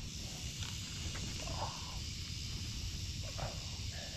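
Steady summer outdoor background: an even, high-pitched insect drone over a low rumble, with a few faint short calls about one and a half and three and a half seconds in.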